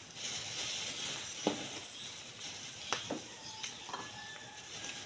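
Thin plastic bag crinkling and rustling as hands rummage in it for vegetables, with a few light knocks.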